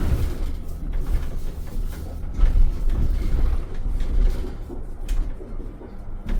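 City bus interior on the move: a steady low engine and road rumble, with short rattles and knocks from the bus's body and fittings now and then.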